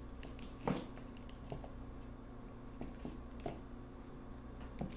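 Plastic squeeze bottle of mayonnaise being squeezed, giving a few short, soft squelches as it squirts, the clearest about a second in.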